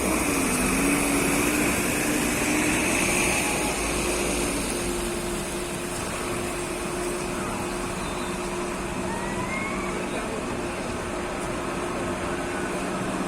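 A vehicle engine running steadily over a constant rushing noise, its pitch dipping briefly about half a second in and then holding level.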